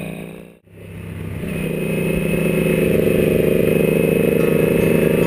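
Yamaha sport motorcycle engine heard onboard at a steady cruising speed. The sound fades out to nothing about half a second in and fades back up over the next second or so, then runs steadily.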